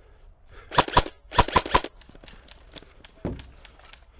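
Airsoft gun firing two short bursts of rapid shots, about a second in and just after. A single dull thump follows near the end.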